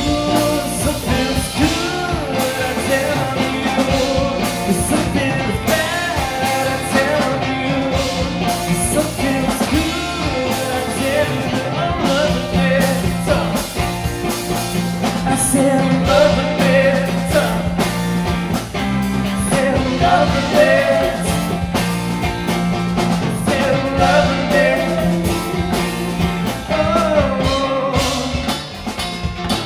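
Live rock band playing: two electric guitars, bass guitar and drum kit.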